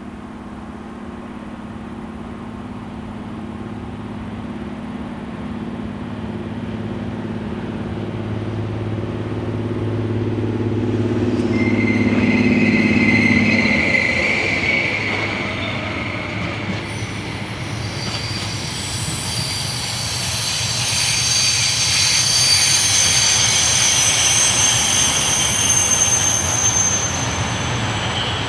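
A locomotive hauling a container freight train approaches with a steady low hum that grows louder and drops away as it passes about 14 seconds in. The container wagons then roll by with high-pitched wheel squeal over the rumble of wheels on rail.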